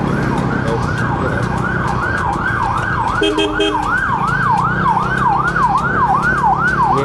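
A siren in a fast yelp, rising and falling about three times a second, over the steady low running of a motorcycle engine. A short run of quick beeps sounds about three seconds in.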